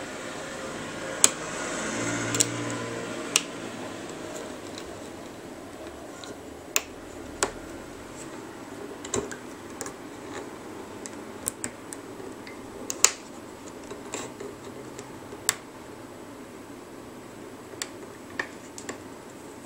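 About a dozen sharp clicks and taps at irregular intervals as a plastic hook works rubber bands over the clear plastic pegs of a rubber-band loom.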